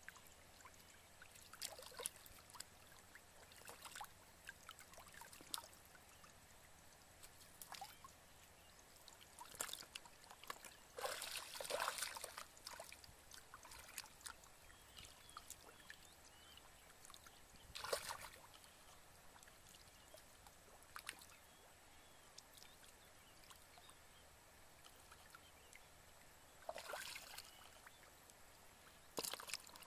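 Shallow muddy water splashing and sloshing in short, scattered bursts as hands and bare feet work through it to catch fish, with a longer stretch of splashing about a third of the way in.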